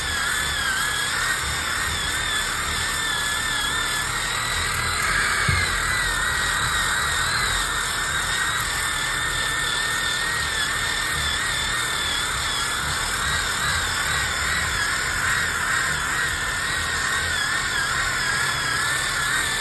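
Electric power sander running continuously against a log wall, with a high motor whine that wavers slightly in pitch as the load changes and rises briefly about five seconds in.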